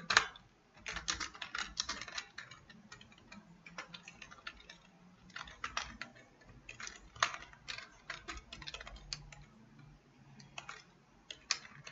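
Computer keyboard typing in short bursts of keystrokes, with brief pauses between the bursts.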